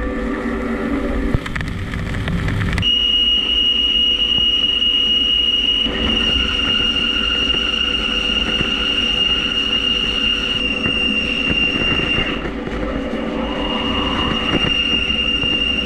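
A 1¾-inch indexable insert drill cutting into a spinning 15-5 stainless steel part on a CNC lathe, with through-tool coolant spraying. About three seconds in, as the drill bites, a steady high-pitched whine starts and holds, dropping out briefly about three quarters through.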